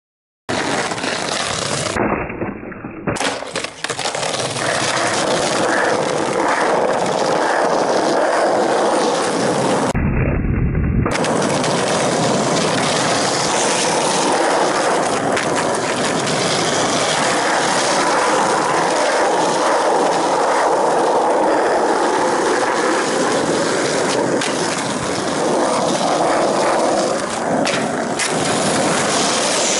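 Skateboard wheels rolling steadily over asphalt, a continuous loud rolling grind, with a few short sharp clacks of the board.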